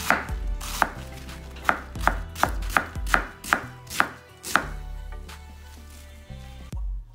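Chef's knife slicing green cabbage into thin shreds on a wooden cutting board: a sharp knock each time the blade meets the board, about a dozen in the first four and a half seconds, then quieter, with one last knock near the end.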